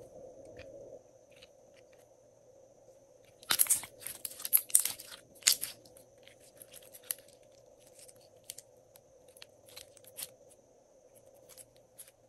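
Glossy slime being squeezed and worked by hand. A burst of loud crackling pops and clicks comes about three and a half seconds in and lasts about two seconds, followed by scattered softer clicks.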